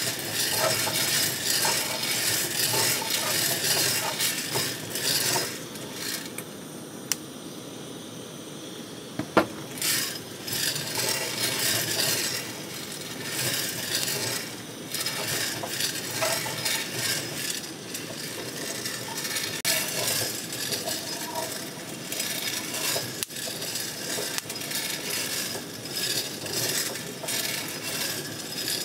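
Coffee beans rattling and tumbling inside a hand-cranked stainless-steel mesh drum roaster as it turns over a gas flame, with the metal drum and crank clinking. The rattling eases off about six seconds in and resumes about three seconds later, with a couple of sharp clicks in the lull.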